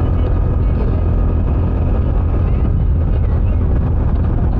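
Bajaj Dominar 400's 373 cc single-cylinder engine running steadily through its stock exhaust while the bike cruises, with wind rush. The rider calls the motor smooth and not struggling at all.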